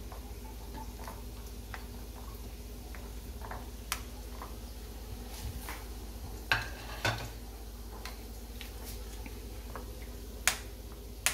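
A steel spoon stirring spice powders into thick yogurt in a ceramic bowl, with a few light clinks of the spoon against the bowl, several of them about midway and near the end. A steady low hum runs underneath.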